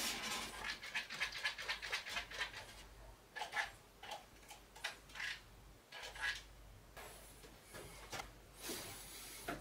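Dry rubbing and rasping from hands working materials inside a speaker cabinet: a quick run of scratchy strokes at first, then a few separate short rustles, the last ones from a felt damping sheet being handled.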